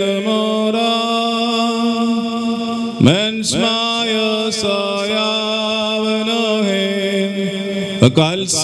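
A man chanting solo into a microphone: a Jacobite (Syriac Orthodox) wedding liturgical chant in long held notes that move up and down in small steps. Two brief, loud sweeping sounds cut across it about three seconds in and again near the end.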